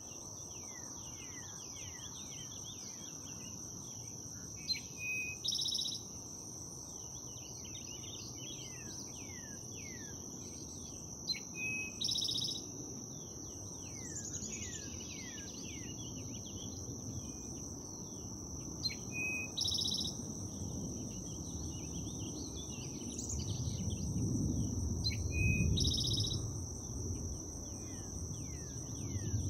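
Birds chirping outdoors over a steady high-pitched insect drone. A song phrase, a short note followed by a buzzy trill, repeats four times, about every seven seconds. A low rumble swells near the end.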